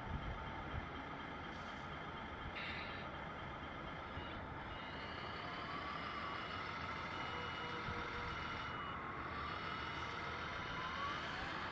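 Radio-controlled scale model truck reversing with its low-loader trailer. A reversing beeper sounds a regular series of short beeps, about one a second, starting a few seconds in, over a steady running noise with a whine that rises and falls.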